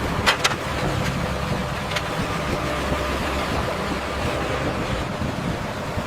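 A steady low engine or machinery rumble, with a few sharp clicks in the first two seconds.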